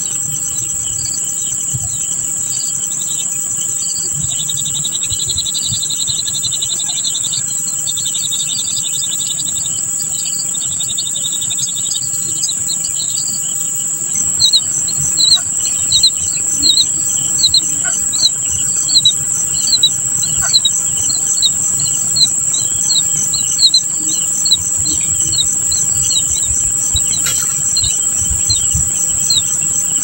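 Steady, high-pitched insect drone with a fast pulsing trill, typical of crickets or cicadas. From about halfway on a bird joins in with sharp chirps repeated more than once a second.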